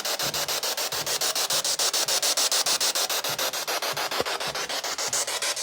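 Spirit box (a ghost-hunting radio scanner) sweeping through stations: a steady hiss of static chopped about ten times a second, with no station coming through.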